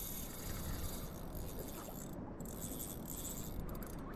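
Fishing reel drag buzzing as a hooked ono (wahoo) runs and pulls line off the reel. The buzz drops out briefly about halfway through and again near the end, over a steady rushing noise.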